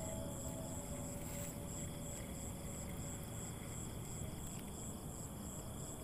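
Night insects chirping in a steady, high-pitched pulse, about three a second, over a low background rumble.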